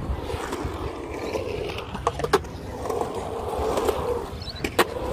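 Skateboard wheels rolling on concrete, with sharp clacks of the board striking the concrete about two seconds in and again near the end.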